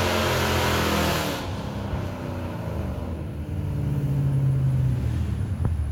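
Dodge Charger Daytona 392's HEMI V8 at high revs in a burnout, with loud tyre noise from the wheelspin. About a second and a half in the wheelspin stops and the V8 runs on at a lower, steady note as the car drives off, growing louder near the end.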